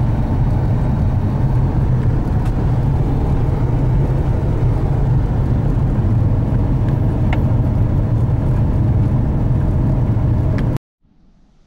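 Car driving along a rural road, heard from inside the cabin: a steady, low engine and road noise with a few light ticks. It cuts off suddenly near the end.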